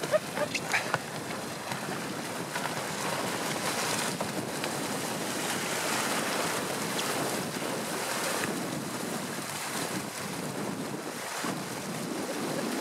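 A team of Inuit sled dogs and their sled splashing through shallow meltwater over lake ice: a steady rush of splashing water, mixed with wind on the microphone.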